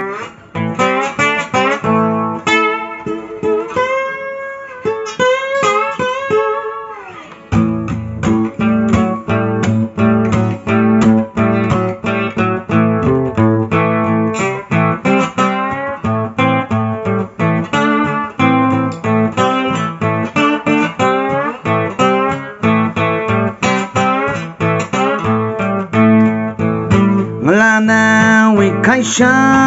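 Acoustic guitar with a capo, fingerpicked: a sparse opening with gliding notes, then from about seven and a half seconds a fuller pattern with steady bass notes under the melody.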